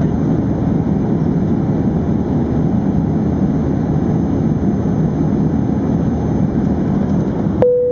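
Airbus A380 cabin in flight: a steady, even low rush of airflow and engine hum. Near the end a sharp click and a brief dip in the noise, then a single steady tone begins.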